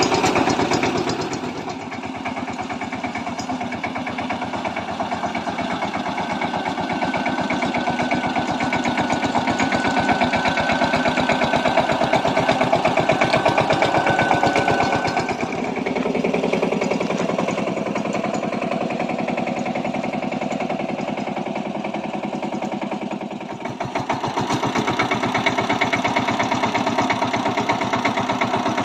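Single-cylinder diesel engine of a Kamco power tiller running steadily under load while ploughing with dry-land tynes, its note easing and picking up again a few times.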